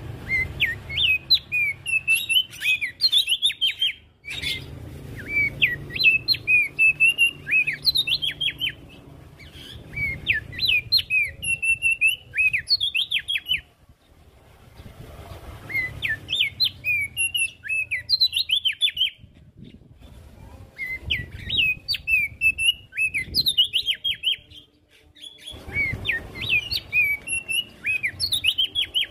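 Opior jambul, a small white-eye, singing: six bursts of fast, jumbled chirping notes, each lasting three to four seconds with short pauses between them, over a low background rumble.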